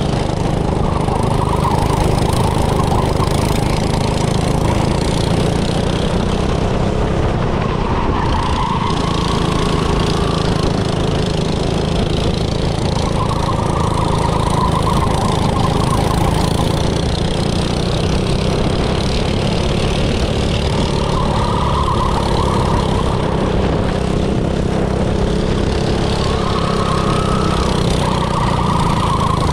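Small go-kart engine running on a grass track, with a higher-pitched whine swelling and fading every several seconds as the engine speed changes.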